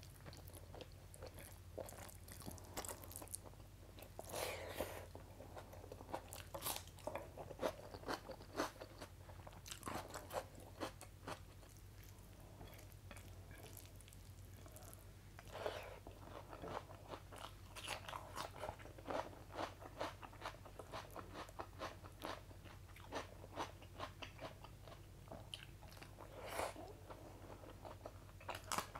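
Close-miked eating sounds: irregular chewing, crunching and wet mouth clicks as rice and kadhi curry are eaten by hand.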